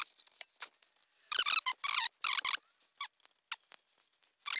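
Short, wavering squeaks in quick runs, mostly from about a second in and again near the end, with a few clicks between: metal squeaking on metal as the Alba 1A shaper's table is bolted on and leveled.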